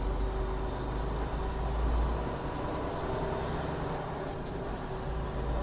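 Semi truck driving, heard from inside the cab: the diesel engine and road noise make a steady low drone.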